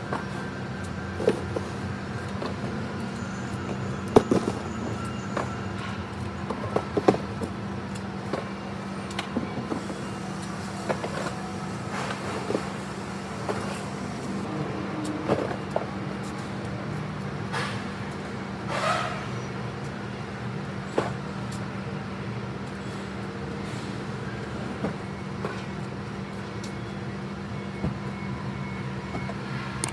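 A car running, heard from inside the cabin: a steady engine and road hum, with scattered small clicks and knocks.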